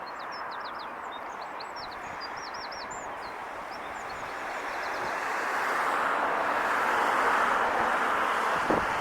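Steady traffic noise that swells over the middle and stays louder toward the end, as a vehicle passes. A small bird chirps a quick series of high notes in the first half.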